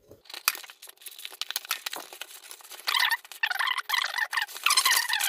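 Action figure packaging being opened by hand: plastic and cardboard crinkling and scraping with many small clicks, louder about three seconds in and again near the end.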